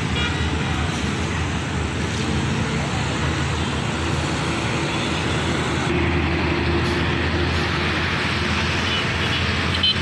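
Steady road traffic noise from passing trucks and cars, with a low engine hum underneath.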